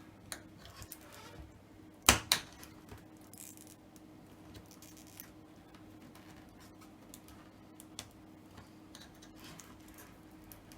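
Light clicks and scratches of a small hand tool working at the adhesive pull tab under an iPhone 6s battery, trying to grip the tab's end; two sharp clicks close together about two seconds in.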